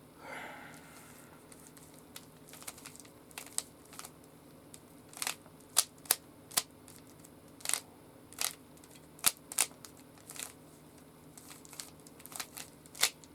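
Plastic Rubik's Cube being handled and twisted, giving irregular sharp clicks and clacks, loudest and most frequent in the middle of the stretch.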